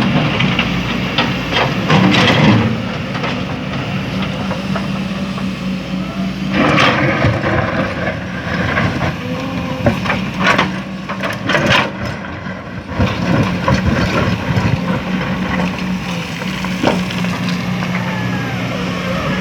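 Excavator's diesel engine running steadily, with a run of knocks and clatter in the middle as the bucket works sand and small stones into a dump truck.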